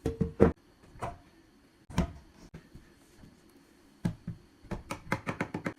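Wooden parts of a joined-block (yosegi-zukuri) carved Buddha statue knocking and clacking as they are handled: a few separate knocks, then a quick run of about eight clacks near the end.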